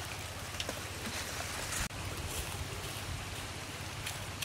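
Steady rushing of a river flowing close by, with wind on the microphone; the sound briefly drops out just under two seconds in.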